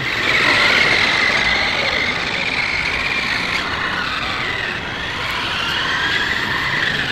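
Remote-control toy car running: the whine of its small electric motor drifts up and down in pitch as it speeds up and slows, over a steady rough noise.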